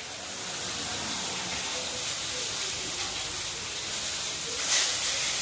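Steady hissing noise, with a brief louder rush near the end.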